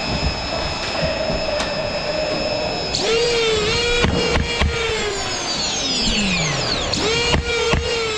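Ryobi-battery Nerf flywheel blaster spinning up with a high motor whine about three seconds in and firing a few darts, each shot a sharp click that briefly dips the whine. The whine falls away as the flywheels spin down, then the blaster revs again near the end and fires a quick string of shots from its solenoid pusher.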